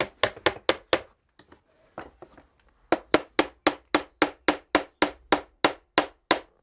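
Small hammer tapping nails through the thin wooden boards of a garden trug into its rim: a quick run of about five taps, a pause, then a steady run of about fourteen taps at roughly four a second.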